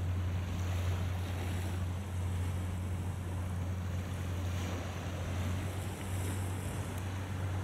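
Wind on the microphone over choppy sea, with a steady low hum underneath.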